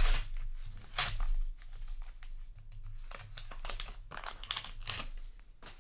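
Foil booster pack wrapper crinkling and being torn open by hand, a run of irregular rustles, loudest near the start and about a second in.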